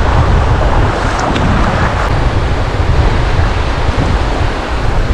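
Wind buffeting the microphone with a heavy, steady rumble, over the wash of small surf waves.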